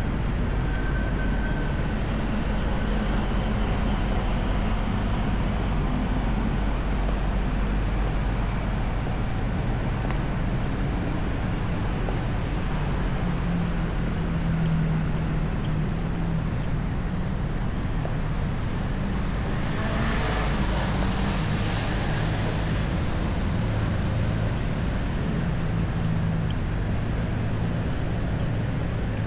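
City street traffic: vehicle engines running steadily, with a brief louder hiss about twenty seconds in.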